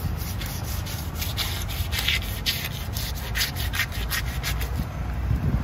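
A knife blade scraping the scales off a large rohu fish in quick, repeated strokes, about four a second, easing off near the end.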